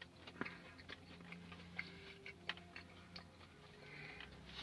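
Faint, scattered wet clicks and smacks of a person chewing food with their mouth.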